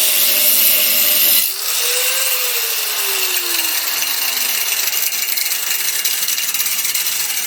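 Angle grinder with a cut-off disc cutting through a steel weld, a steady harsh hiss of disc on metal. About a second and a half in it dips briefly, then the motor's note rises a little and slowly sinks as the disc bites under load.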